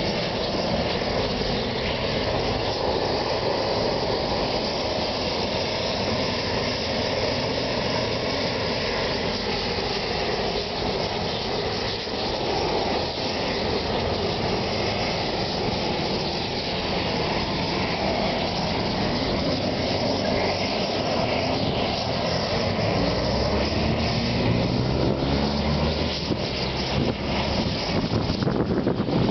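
Steady city road-traffic noise. Near the end, one vehicle's engine rises in pitch as it pulls away.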